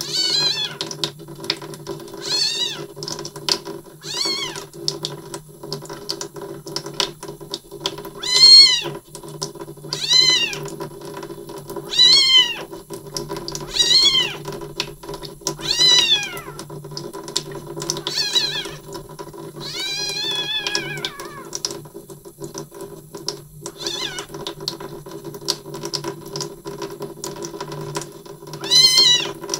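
Young kitten mewing loudly and repeatedly, a high arching cry about every two seconds with a pause of several seconds near the end, crying while it is being helped to defecate. A steady low hum runs underneath.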